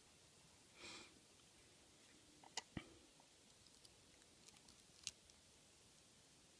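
Near silence with a few faint, sharp clicks of a hook pick and tension wrench working the serrated and spool pins of a Draper Expert 46 mm padlock. There is a soft short hiss about a second in, clicks around two and a half and three seconds in, and one more near five seconds.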